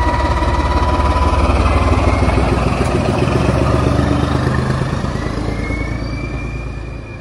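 BR Class 14 diesel-hydraulic locomotive with its Paxman Ventura engine running loudly with a throbbing drone and a transmission whine. Near the end the whine rises as the loco opens up and draws away, and the sound fades.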